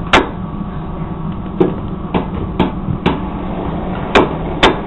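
Hammer blows on a hot meteorite bar being forged into knife stock, about seven sharp strikes roughly two a second with a pause near the middle, over a steady low hum.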